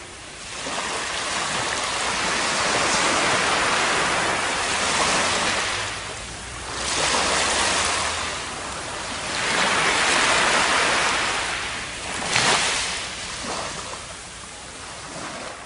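Surf washing up on a sandy beach in about four rushes, each swelling and falling away over a few seconds, with a short sharper rush about three-quarters of the way through before it eases off.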